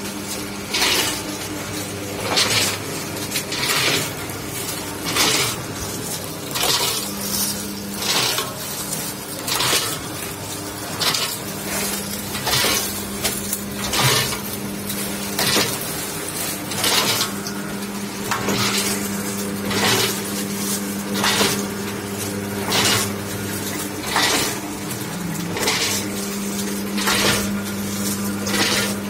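Cup-filler pouch packaging machine running: a steady motor hum under a rattling clatter that repeats about every 1.3 seconds, once per packing cycle, as each measured charge of dry snack pellets drops through the machine into a pouch.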